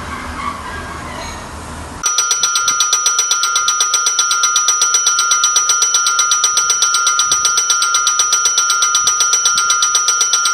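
Railway platform noise for about two seconds, then abruptly a loud electric bell ringing without pause, with rapid, even strikes on a steady high pitch: a bell sound effect that goes with the call to click the notification bell.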